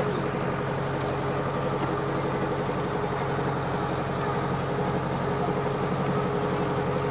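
Farm tractor engine running at a steady, even pitch while towing a hay wagon.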